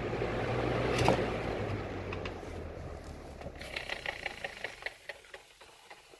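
Lasko 3733 box fan's motor humming, then a click about a second in, after which the fan's sound fades steadily as it winds down, with a rapid ticking rattle partway through the fade.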